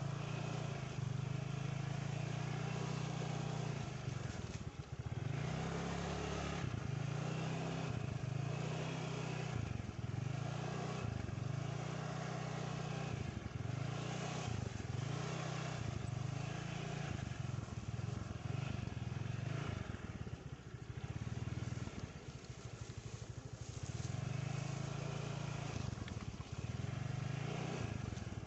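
Motorcycle engine running while being ridden, its low hum swelling and dipping about once a second, with a longer, quieter dip about two-thirds of the way through.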